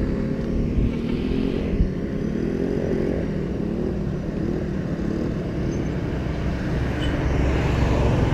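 Motorcycle engines in passing road traffic, their pitch wavering up and down and growing louder near the end as a motorcycle and a sidecar tricycle draw close.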